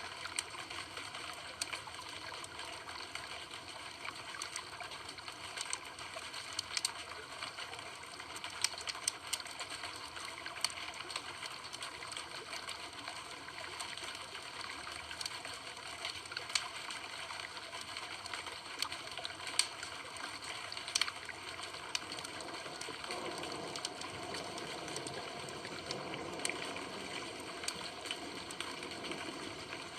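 Campfire burning: a steady hiss with scattered sharp crackles and pops from the burning wood.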